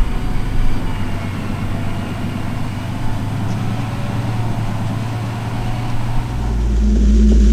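Fendt 936 Vario tractor pulling a Samson PG II 31 tanker, its engine running steadily under load. About six seconds in it gets clearly louder and deeper.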